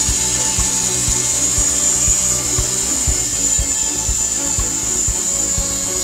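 Wood-Mizer LT40 band sawmill, with an electric-motor drive, sawing through a squared log: a steady, high-pitched hiss from the band blade cutting the timber. A steady beat of background music, about two thumps a second, runs underneath.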